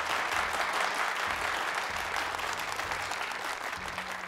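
Audience applauding: dense, steady clapping from a seated crowd that slowly dies away.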